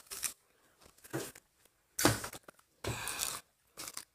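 Five or so short bursts of rustling and crackling close to the microphone, the loudest about two seconds in.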